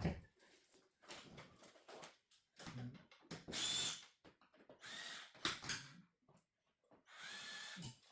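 Small handheld power tool, such as an electric drill-driver, running in three short bursts of under a second each with a steady whine, and light clatter between them.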